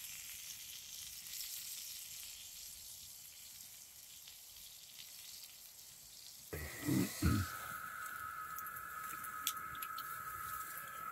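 Food sizzling as it cooks, a faint, even crackle. About two-thirds of the way through the sound changes abruptly: two low thumps, then a steady high tone that holds to the end.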